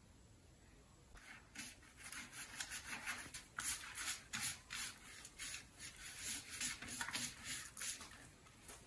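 Pastry brush swept back and forth over a non-stick metal baking tin, greasing it with softened butter: a run of short scratchy strokes, about two a second, starting about a second in and stopping shortly before the end.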